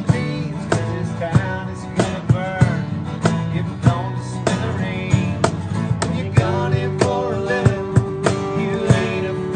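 Instrumental break of an acoustic country jam: two acoustic guitars strum chords over a steady beat slapped on a cajon, while a harmonica plays a lead line with bent notes and holds one long note near the end.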